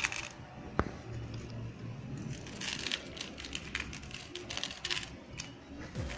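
Fine namkeen (sev) sprinkled by hand onto a crisp fried papad, giving scattered light crackles and ticks, with one sharper click about a second in.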